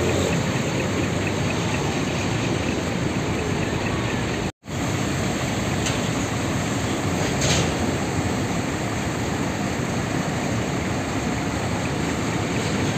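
Steady din of idling diesel coach engines across a bus terminal lot, with the sound cutting out for a moment about four and a half seconds in.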